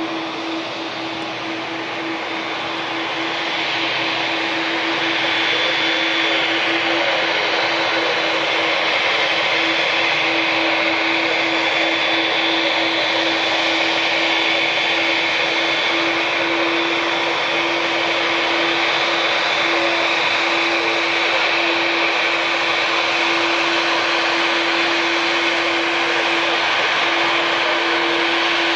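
Boeing 787 jet engines running at taxi power: a steady roar with a hum and a high whine, getting louder over the first few seconds as the airliner turns toward and passes close by, then holding steady.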